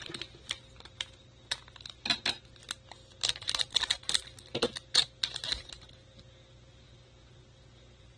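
Light, irregular clicks and taps of trading cards and fingertips being handled on a hard glossy surface, in a quick run that stops about six seconds in.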